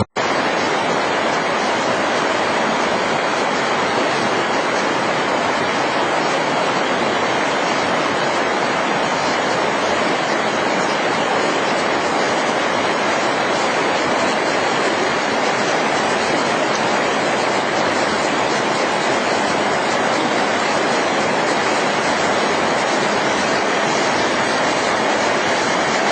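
Steady, even rushing noise with no engine note or rhythm, starting and cutting off suddenly.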